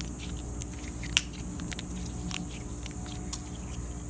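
Slime being worked by hand, giving scattered sticky clicks and small pops, about half a dozen, the loudest a little over a second in.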